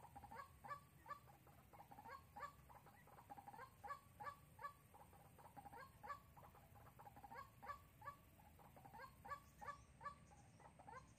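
White-breasted waterhen calling: a faint, unbroken run of short repeated notes, about three a second.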